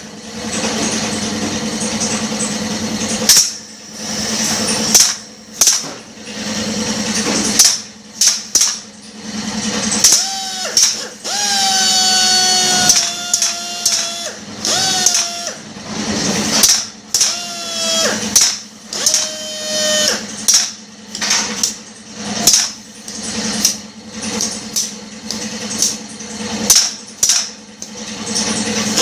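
Pneumatic drill of an auto-feed drilling rig running, with many short bursts of compressed air from the valves and feed cylinder as the rig cycles. A steady motor hum in the first few seconds, and held whining tones through the middle.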